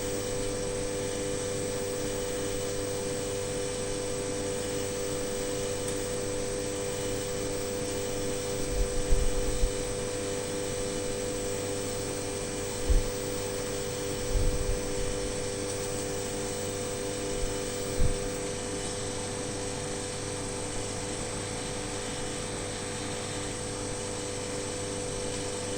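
Steady mechanical hum with a constant whine-like tone, broken by a few short low thumps near the middle.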